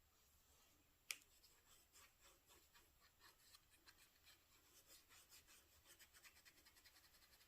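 Glass dip pen nib scratching faintly across paper in a run of short strokes that come quicker toward the end, after one sharp tick about a second in.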